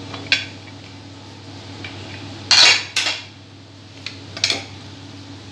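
Metal pressure cooker lid being unlocked and lifted off, then a ladle going into the pot: a handful of short metallic clanks and scrapes, the loudest about halfway through.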